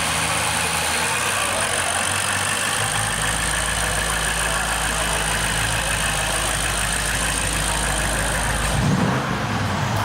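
BMW M850i xDrive's 4.4-litre twin-turbo V8 idling steadily, then blipped once near the end, its pitch rising and falling back.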